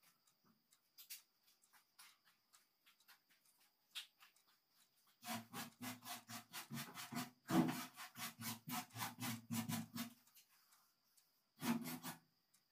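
Hand rubbing on the sheet-metal hood of an old Toyota Kijang, in quick back-and-forth strokes at about five a second. The strokes are scattered and faint at first, run steadily for about five seconds from the middle on, and come back in one short burst near the end. A faint, steady high whine sits underneath.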